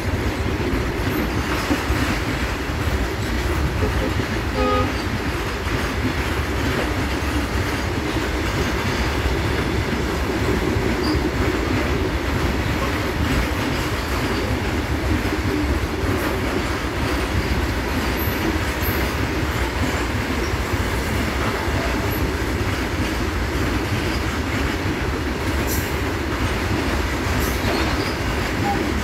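Long goods train of covered freight wagons rolling past at speed: a steady, unbroken rumble of wheels on rail.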